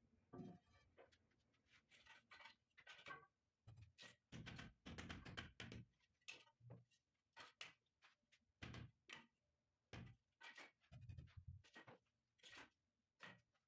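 Faint, irregular scrapes and light knocks of a white marble slab being handled and set down onto a stair tread by hand.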